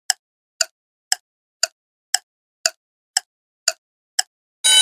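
Quiz countdown timer sound effect: steady ticks, about two a second, nine in all, then a loud electronic alarm buzzer starts near the end, signalling that time is up.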